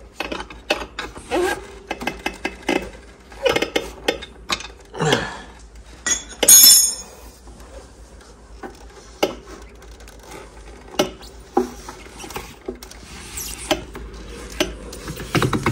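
Metal tool clinking, knocking and scraping against an ATV's CVT clutch as a cam-type belt tool is wedged in to spread the clutch sheaves and free the drive belt. Scattered irregular clicks and knocks, with one louder, sharper metallic scrape about six and a half seconds in.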